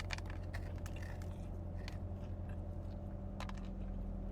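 Close-miked chewing of a Korean corn dog whose coating has gone soggy: soft mouth sounds with scattered clicks rather than crunches, over a steady low hum.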